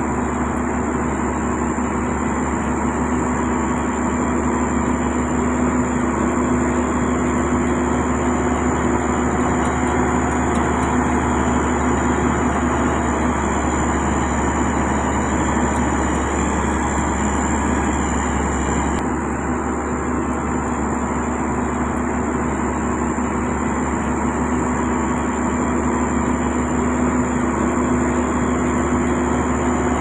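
Heavy road-construction machinery running steadily: a constant diesel engine drone with a steady high tone over it. The sound shifts slightly about nineteen seconds in.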